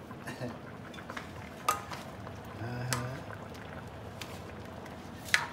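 A metal utensil clinking against a cooking pot three or four times, the loudest clink near the end, over a steady low simmer of the soup.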